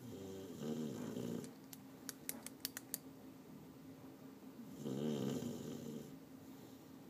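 Snoring in deep sleep: two long, wavering snores about four seconds apart. Between them comes a quick run of small sharp clicks, and a steady low hum runs underneath.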